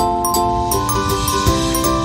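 Background music: an instrumental passage of held, bell-like notes, with a new note struck every fraction of a second.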